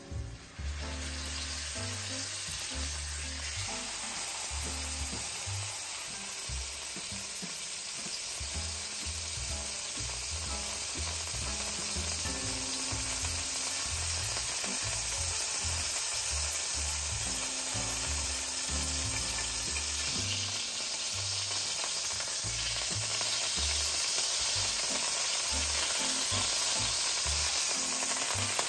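Beef tenderloin searing in hot olive oil in a stainless steel skillet: a steady sizzle that comes up sharply about half a second in and grows slightly louder as the meat is turned.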